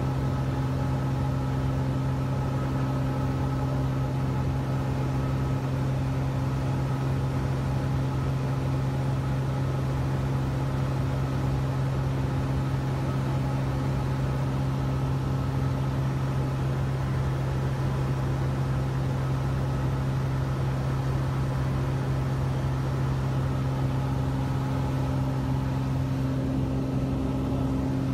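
Cessna 172's piston engine and propeller droning steadily in cruising flight, heard inside the cabin: a strong, even low hum with fainter steady tones above it and no change in pitch or level.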